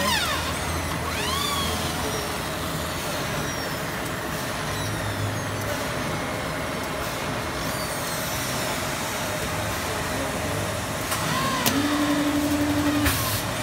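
Garbage-bag roll-making machine running steadily while its winder makes an automatic roll change, with machine whines that sweep in pitch now and then. Near the end come a short steady hum, a few clicks and a brief hiss.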